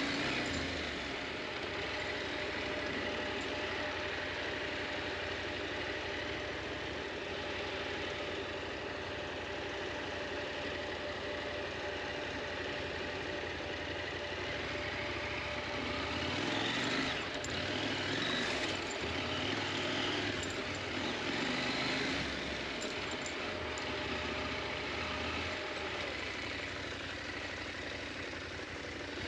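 KTM 890 Adventure's parallel-twin engine running, its revs rising and falling a few times about two-thirds of the way through.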